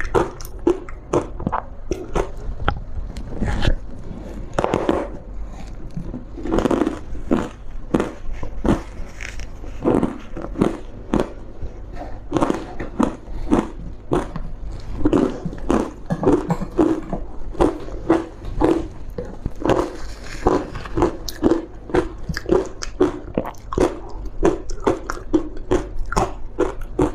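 Close-miked biting and chewing of thin ice coated in green matcha powder: a steady run of crisp crunches, about two to three a second.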